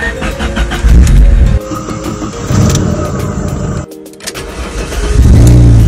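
Alfa Romeo engines cold-starting, cut together in quick succession. Each is cranked on the starter, catches and revs up loudly on a fast cold idle, then cuts off abruptly about every two seconds.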